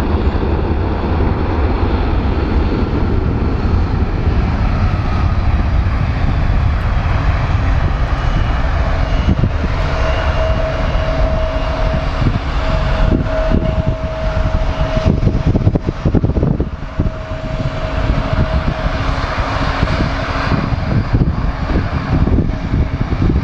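Jet airliner engines running, a steady low rumble with a steady whine joining about ten seconds in and fading near the end; the microphone is buffeted at times in the middle.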